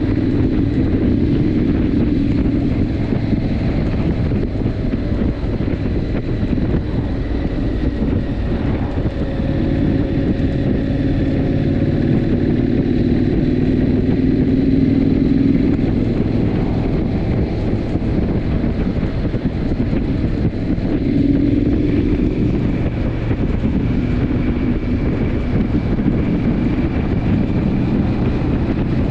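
Triumph Scrambler 900's parallel-twin engine running steadily at cruising speed, with wind rushing over the microphone. The engine note shifts a little about a third of the way in and again near three quarters of the way through.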